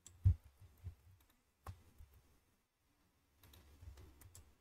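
Computer mouse and keyboard clicks. A few separate clicks come first, the one just after the start the loudest, then a quicker run of soft clicks near the end.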